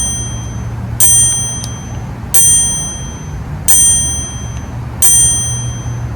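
A high bell-like chime, struck about every 1.3 seconds, with each strike ringing out and fading, over a steady low hum.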